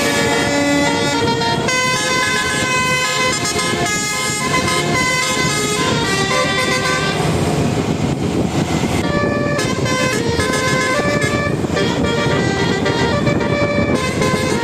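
Bus 'telolet' musical air horn playing a tune of short, stepped notes, over a steady low rumble.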